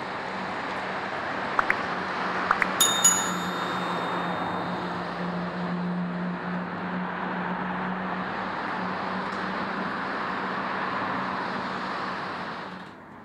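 Steady traffic noise, with a few quick clicks and then a bright bell-like ding about three seconds in: a like/subscribe-button sound effect. The traffic noise drops away sharply near the end.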